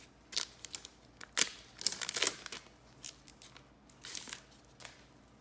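Foil wrapper of a trading-card pack being torn open and crinkled: a run of short, sharp crackles, the loudest about a second and a half and two seconds in.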